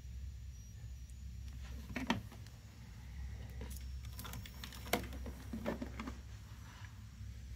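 Scattered light clicks and taps over a steady low hum: one click about two seconds in, then a cluster of them peaking near five seconds.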